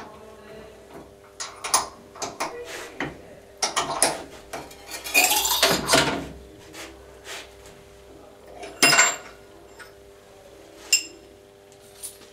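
Metal clanks and rattles from a metal-cutting saw's vice and swinging arm being handled, with no motor running: a run of knocks, a longer clatter about five seconds in, and two sharp clanks later with a brief metallic ring.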